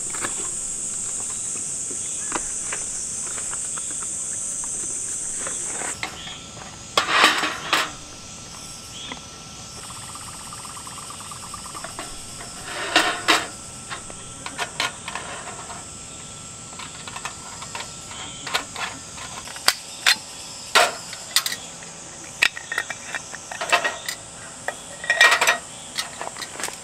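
Steady high-pitched insect chorus for the first six seconds, cutting off suddenly. Then sharp clinks and knocks of metal camping lanterns and a fuel bottle being set down and handled on a metal mesh table, loudest about a second in after the cut, around the middle, and near the end.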